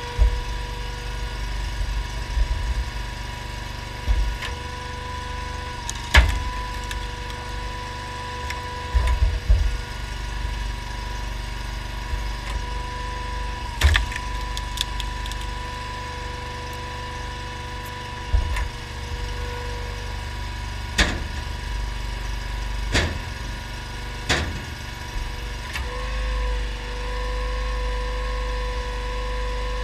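Honda GX690 V-twin engine running steadily to drive a homemade hydraulic log splitter, with a steady whine that swells near the end. About six sharp cracks and knocks of rounds splitting and split wood dropping break through.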